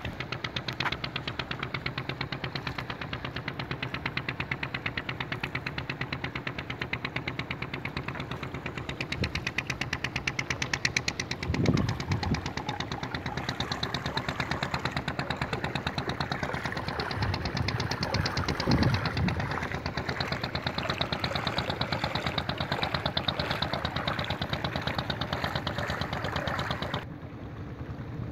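Boat engine running steadily with a fast, even beat, with two louder knocks partway through; it cuts off shortly before the end.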